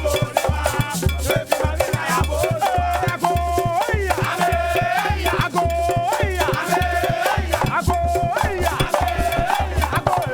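Upbeat band music with a steady bass beat about twice a second, a shaker, and a lead melody line.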